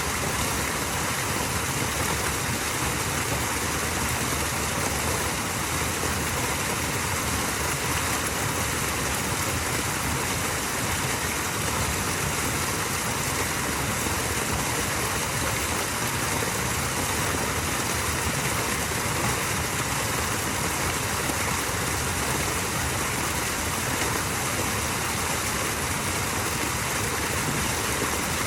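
Small waterfall: running water with a steady, unchanging rush.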